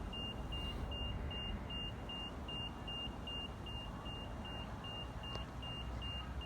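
A steady run of short, high electronic beeps at one pitch, about two and a half a second, over a low steady rumble.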